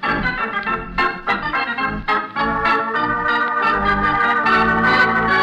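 Organ music cue closing a radio drama scene: a quick run of notes, then held chords from about halfway in.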